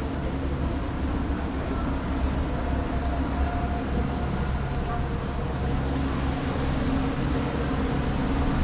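Steady low hum of vehicle engines in city street traffic, with a few faint steady tones over it.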